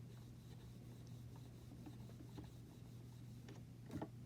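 Faint rubbing of a blending brush working ink over a rubber stamp or cardstock, over a steady low hum, with a light knock near the end.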